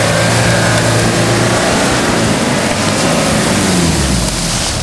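Nissan Terrano II's engine running under load as the 4x4 pulls through deep mud, its revs falling away about three seconds in.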